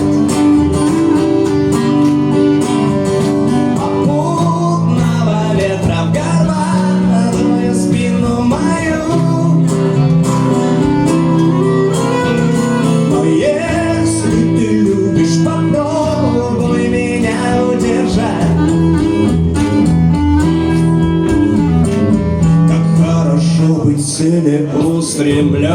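Instrumental break in a song played live by a small band: guitar accompaniment under a moving melody line, with no lyrics sung.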